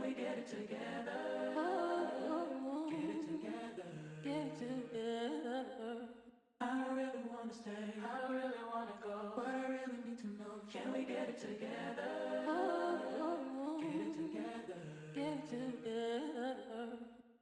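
Background music led by a sung vocal, breaking off for a moment about six seconds in and fading out at the end.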